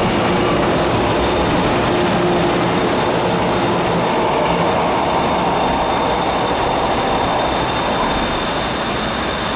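MTR M-Train electric multiple units passing through an underground station platform at speed without stopping: a steady, loud rush of wheel and running noise.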